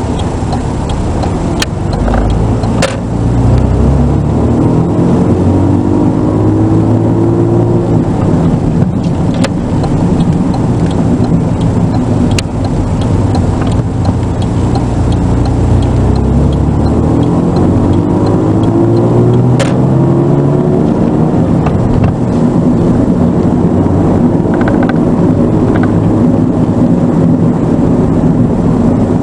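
Mitsubishi GTO Twin Turbo's twin-turbo V6 pulling the car along, its engine note climbing in pitch twice with a drop in between, then running steadier. A few sharp clicks sound over it.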